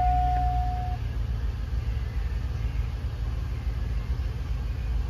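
2002 Chevrolet Suburban's 5.3-litre V8 (L59) idling steadily, heard from inside the cab. A steady dashboard warning chime tone sounds for about the first second and then stops.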